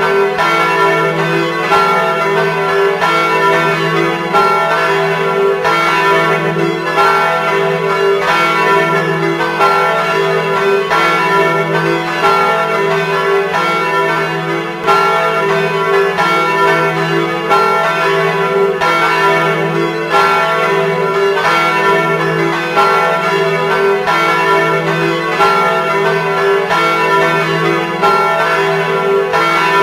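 Church tower bells pealing together, strikes overlapping roughly once a second over a continuous ringing hum.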